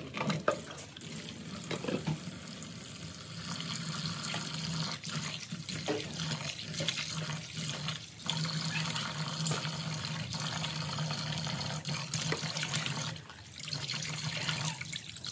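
Tap running into a plastic basin of water in a sink while hands rub and swish food in the water, splashing. The flow eases briefly near the end.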